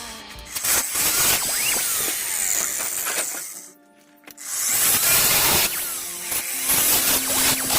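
Electronic background music with sweeping, noisy textures; it drops almost to silence for about a second midway, then comes back with held notes.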